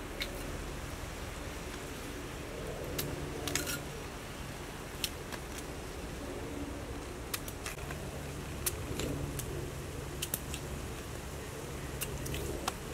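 Cleaver cutting chunks off a peeled potato held in the hand: a dozen or so sharp, irregular clicks over a steady background hiss.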